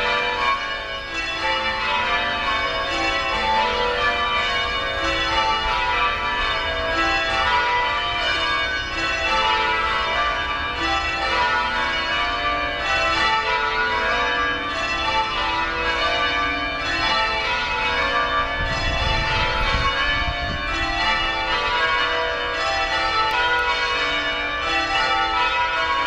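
Church bells of the Washington National Cathedral ringing a continuous peal, many bells struck in quick succession and overlapping, in the manner of change ringing.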